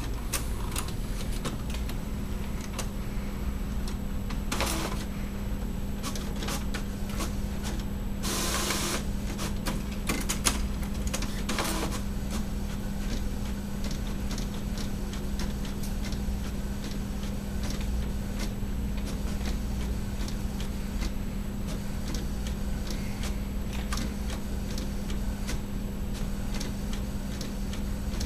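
Printer running through a print job: a steady low hum with many scattered clicks. Three short hissing sounds come about five, eight and twelve seconds in, and the one near eight seconds is the longest.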